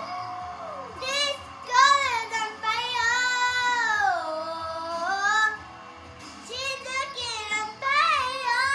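A young girl singing, holding long notes that slide up and down in pitch, with a short drop in her voice about six seconds in.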